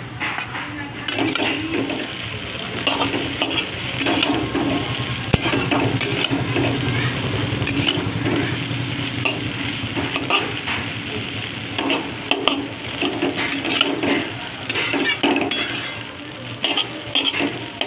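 Chicken chow mein stir-frying in a pan: a spatula scraping and tossing the noodles in irregular strokes over a steady sizzle.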